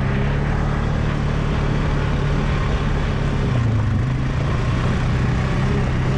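Two ATVs driving slowly past at low throttle, their engines running with a steady low note that dips briefly about halfway through.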